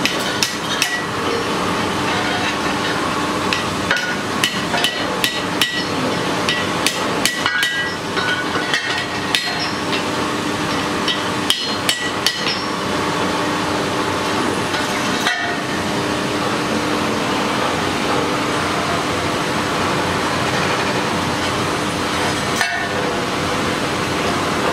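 Hand hammer striking metal on an anvil as small forged figurine parts are shaped: a quick run of taps, some with a short metallic ring, coming thick in the first half and only now and then later. A steady rushing hum of shop noise runs underneath.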